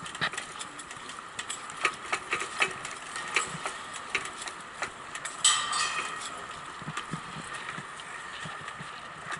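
Bicycle rolling along a paved path, rattling and clicking irregularly over the surface, with a brief hiss about five and a half seconds in.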